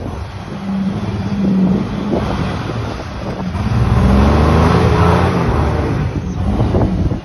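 Jeep Wrangler's engine revving hard under load as it climbs out of a sandy gully, rising in pitch and loudness about halfway through, with the rough noise of the tyres churning sand.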